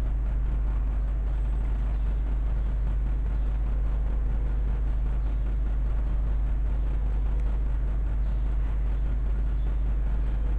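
A steady low hum with an even faint hiss above it, unchanging throughout.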